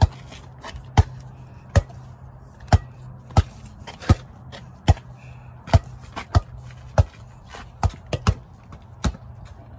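A ball bouncing on a paved driveway as it is dribbled: about fourteen sharp bounces, most roughly three-quarters of a second apart, with three in quick succession a little before the end.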